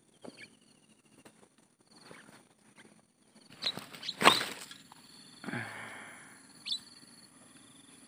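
Small birds giving short, high chirps now and then, with a few sharp knocks and a brief rustle about halfway through.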